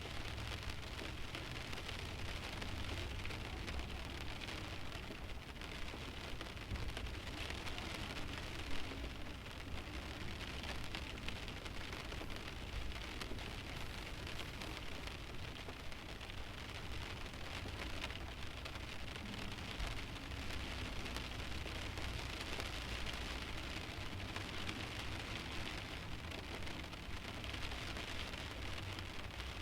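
Light rain pattering on a stationary car's windshield: a steady hiss of many small drop impacts on the glass, with a low rumble underneath and no engine or road noise. One drop lands a little louder about nine seconds in.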